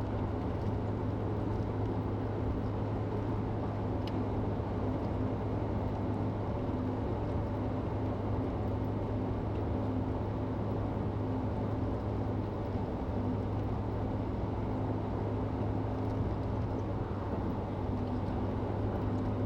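Car interior road noise while driving at steady speed: an even low drone of engine and tyres that holds unchanged throughout.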